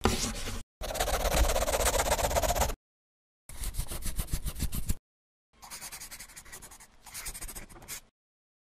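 Sound effect of scribbling on paper, in several bursts of rapid strokes with dead silence between them. The longest and loudest burst comes about a second in.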